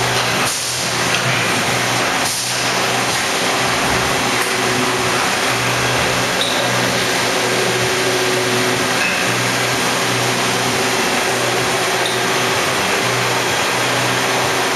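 CNC turning center (Hardinge Elite II-8/51 lathe) running under power while cutting parts: a loud, steady machine hum and hiss.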